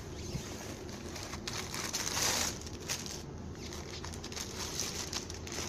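Rustling and crinkling of crib parts and packaging being handled during assembly, with small clicks throughout and a louder rustle about two seconds in, over a steady low hum.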